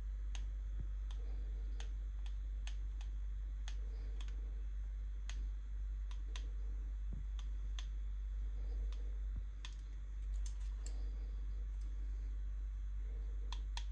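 Sharp plastic clicks from the buttons of a Baofeng handheld radio being pressed, irregularly about once a second with a quick cluster a little past the middle, over a steady low hum.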